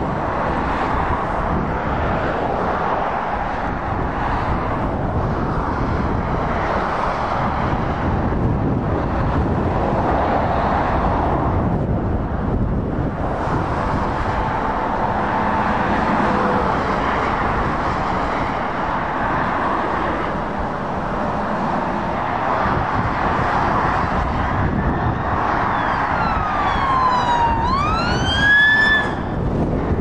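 Strong wind buffeting the microphone over the steady rush of traffic passing on a dual carriageway. Near the end a siren tone sweeps down and then sharply up in pitch for about three seconds.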